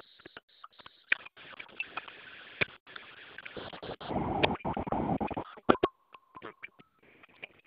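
Faint room hiss broken by scattered clicks, with a louder rustling noise a few seconds in and a short steady tone near the end.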